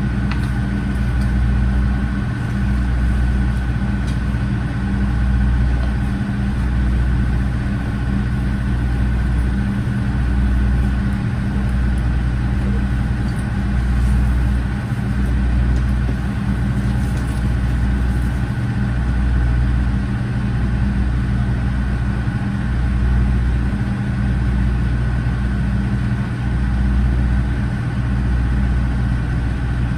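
KiHa 47 railcar's original DMF15HSA diesel engine idling while the train stands still, heard inside the passenger cabin: a steady low drone with a deep rumble that swells and fades every couple of seconds.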